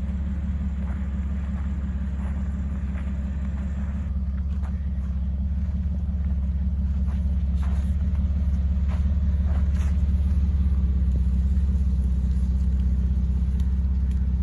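Lifted Jeep Wrangler TJ crawling at walking pace, its engine and muffled exhaust giving a steady low rumble that grows a little louder from about six seconds in. A few faint clicks sound over it.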